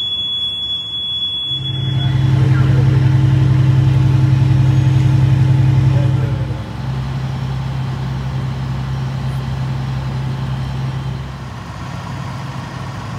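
A building fire alarm sounds a steady high tone that stops about two seconds in. A large vehicle engine, fire apparatus at the scene, then idles with a steady low hum. It is loudest for a few seconds and a little quieter after that.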